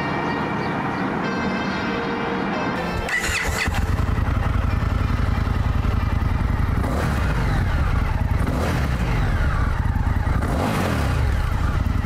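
Background music, then about three seconds in the Indian FTR 1200's liquid-cooled V-twin starts and runs at idle through its Akrapovič exhaust, blipped up in revs twice.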